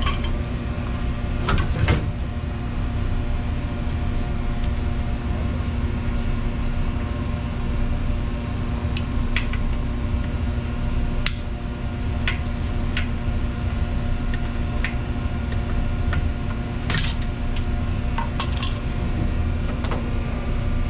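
Hand tools clinking and tapping on metal now and then while a commercial dishwasher's motor is taken apart, over a steady low machine hum.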